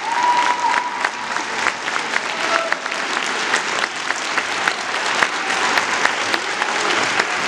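Large audience applauding, a dense, steady patter of many hands clapping. A high held tone sounds over the clapping for about the first second and a half.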